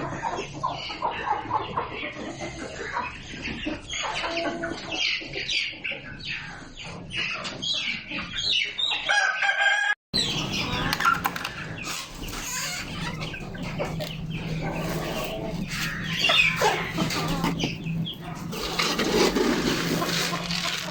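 Many birds calling over one another in short squawks and clucking, crowing-like cries, with a steady low hum underneath. The sound drops out for an instant about ten seconds in, then resumes.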